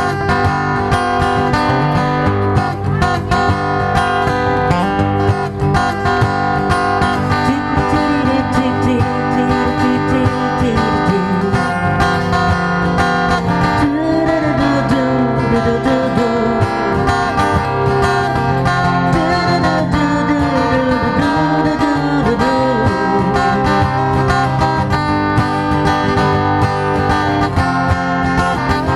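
Acoustic guitar strummed steadily, with a man singing over it through the middle stretch.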